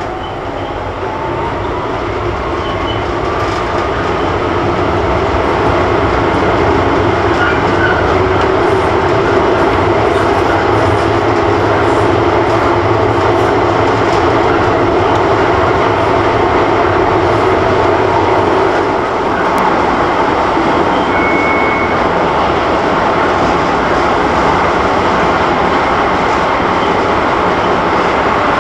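Articulated tram heard from inside the passenger saloon, running along its track: a continuous rumble of wheels on rail that builds over the first several seconds as it picks up speed. A faint rising motor whine comes near the start, and the tram then runs steadily.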